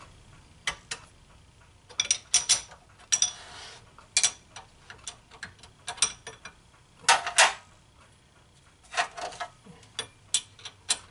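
Irregular metal clicks and clinks with a few short scrapes, from the mini lathe's tailstock and drill chuck being handled and drawn back out of the drilled hole.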